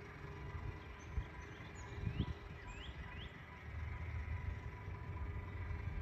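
A bird gives three quick rising chirps about two to three seconds in, over a low outdoor rumble.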